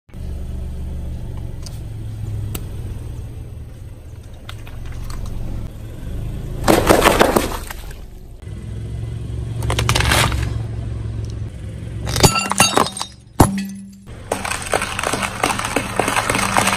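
A car's tyre rolls over and crushes objects on concrete, over a steady low engine hum. There are several loud bursts of popping and splatter. Near the end comes a dense run of crackling as a row of eggs is crushed under the tyre.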